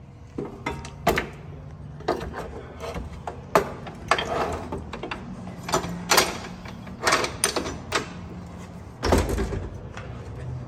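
Irregular metal knocks and clanks of hand tools and engine parts being handled, about a dozen sharp hits, the heaviest with a dull thud about nine seconds in, over a faint steady low hum.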